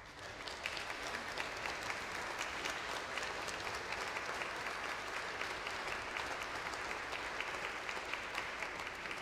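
Applause: many hands clapping, swelling in over the first second and then holding steady.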